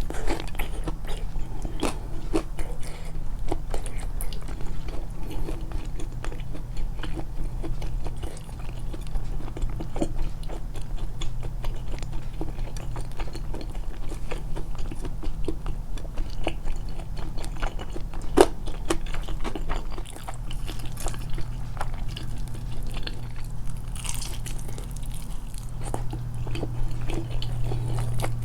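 Close-up eating sounds of homemade fried chicken: bites and moist chewing with light crunches from the fried coating, and one sharper crunch about eighteen seconds in. A steady low hum runs underneath, stronger near the end.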